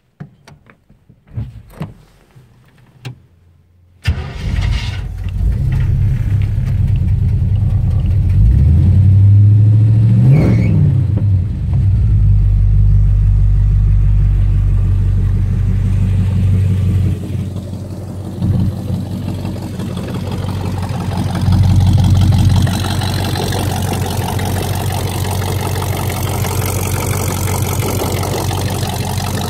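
1954 Mercury's engine starting: a few clicks, then it catches about four seconds in, is revved up and back down a few seconds later and again briefly near the end, and otherwise idles steadily.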